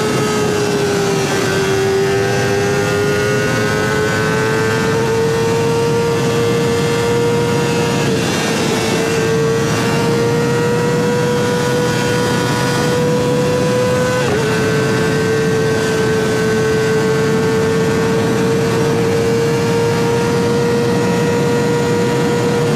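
Kawasaki ZX25R 249 cc inline-four fitted with a Sphere stainless-steel full-system aftermarket exhaust, running loud at high revs. Its high-pitched engine note climbs slowly, drops for an instant about 14 seconds in, then holds steady.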